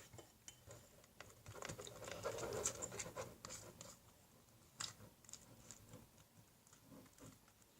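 Faint scraping and clicking of a spoon stirring a batch of PVA-glue slime in a bowl, with a louder run of scraping about two seconds in; the mix is thickening after borax water was added.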